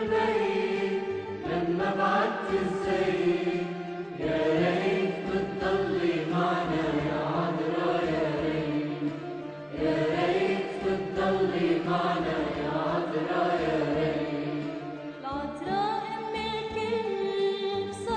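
Arabic Orthodox devotional song to the Virgin Mary: melodic music with chant-like singing voices, moving in long phrases of several seconds each.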